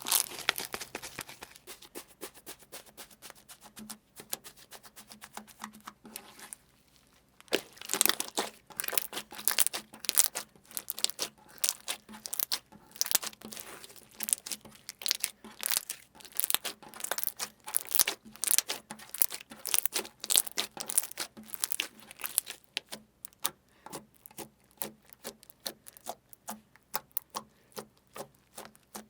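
Crunchy slime being squeezed and pressed by hand, giving a dense, irregular run of crackles and pops. There is a brief pause about six and a half seconds in, then it starts again.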